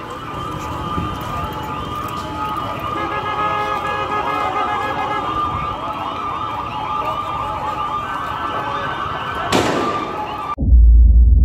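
Several overlapping sirens and alarms wailing at once, with a short burst of noise near the end; the sound then cuts off abruptly into a loud, deep low rumble.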